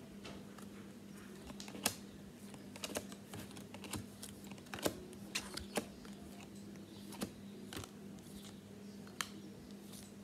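Trading cards being thumbed through by hand, one card slid off a stack after another: irregular light clicks and snaps of card edges, with a faint steady hum underneath.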